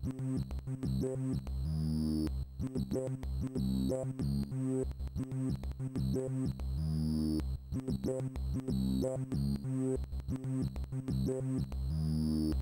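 Synthesizer-based electronic intro music played by an Amiga 1200: a steady run of short, rhythmic notes over a bass line, with a held note about every five seconds.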